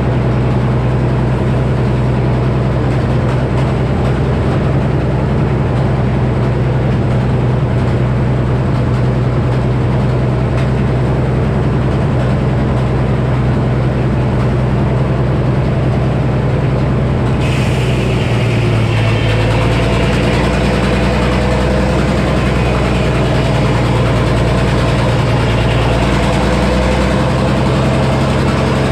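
Minneapolis Moline HEB 605-cubic-inch six-cylinder engine powering a Frick sawmill, running steadily with a strong low hum. A little over halfway through, a higher hiss joins in and the engine note shifts.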